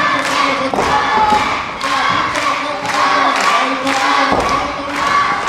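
Wrestling audience chanting in rhythm, with regular thuds about twice a second.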